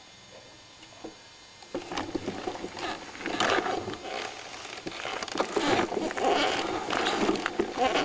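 Downhill mountain bike setting off about two seconds in and rolling down a forest dirt trail: tyre noise over the ground with the frame, chain and camera mount rattling and knocking, heard through a camera mounted on the bike.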